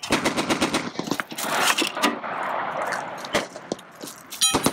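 Metal clanks, knocks and scraping as a cartridge case is pushed into the breech of a Soviet D-30 122 mm howitzer, with a short ringing metallic clang near the end.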